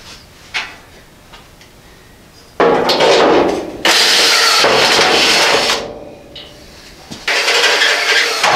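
Cordless drill with a step bit boring through the sheet steel of a primed pickup bed, in two long runs: one starting about two and a half seconds in, with a short break, lasting about three seconds, and another starting about seven seconds in. A few light clicks come before the first run.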